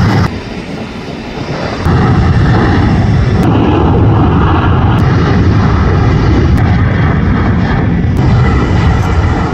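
Twin-engine jet airliners at takeoff power, a steady loud rumbling roar, in short takeoff clips spliced together with abrupt cuts every second or two. It is quieter for the first couple of seconds, then loud.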